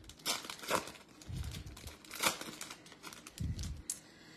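Foil trading-card pack wrapper being torn open and crinkled by hand, in scattered crackles, with two soft low thumps from handling in between.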